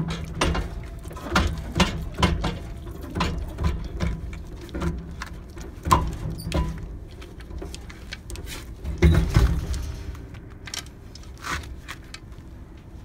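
Steel chain clinking and rattling against a truck's steel disc wheel as it is worked by hand: an irregular run of sharp metallic clinks, the loudest cluster about nine seconds in, over a steady low hum.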